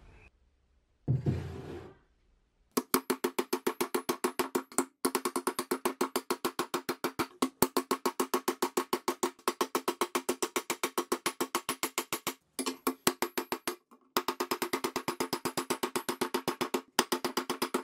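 Hammer beating a rusty steel shovel blade on a small steel bench anvil, about five quick blows a second with a metallic ring, to hammer the bent blade flat. The blows come in runs with brief pauses, after a single dull thump about a second in.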